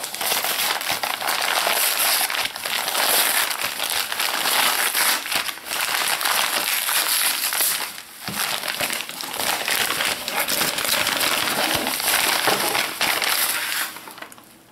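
A padded paper mailer (Sealed Air envelope) being torn open and crumpled by hand: continuous loud crinkling and ripping of paper and tape, with a brief lull about halfway through, dying away near the end.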